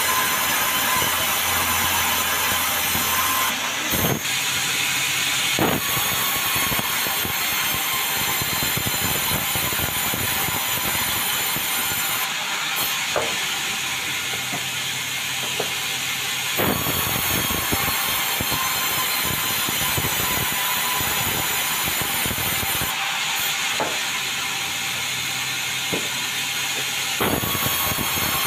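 Powered sawmill running and cutting a meranti log: a steady, hissing mechanical noise with a few sharp knocks spaced through it.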